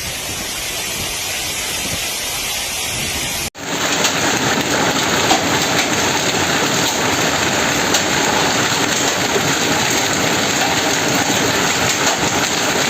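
Hailstorm with heavy rain pelting down in a steady hiss. About three and a half seconds in it cuts to a louder, denser downpour peppered with many small sharp hits.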